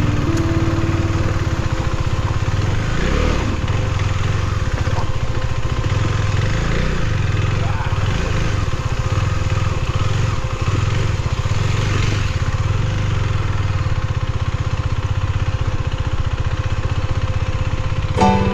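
Husqvarna Svartpilen 401's single-cylinder engine running at a steady, even pace while the bike is ridden, with wind and road noise over it.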